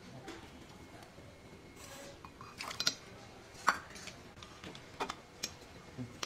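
Several sharp clinks and taps of kitchenware being handled: a steel bowl of soaked cashews and melon seeds, and a glass mixer-grinder jar whose lid is being clipped on. The loudest tap comes a little past halfway.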